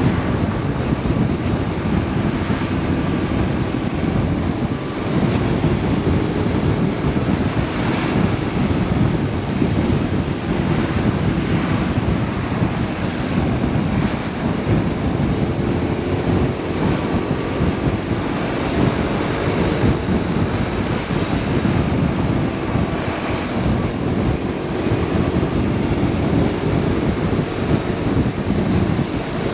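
Steady, heavy wind rush buffeting the microphone on a BMW R 1150 RS motorcycle riding at road speed, with the bike's boxer-twin engine faintly droning underneath.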